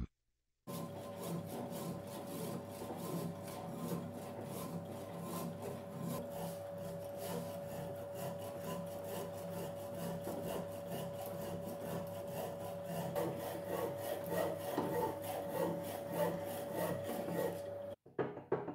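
Hacksaw cutting through a 40 mm bar of free-cutting steel with repeated strokes, over a steady hum. The sound cuts off abruptly near the end.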